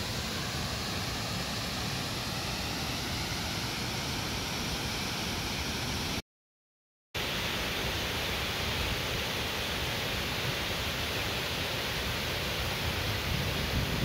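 Steady rushing of a wide curtain waterfall pouring into a shallow pool. The sound cuts out completely for about a second midway, then carries on as before.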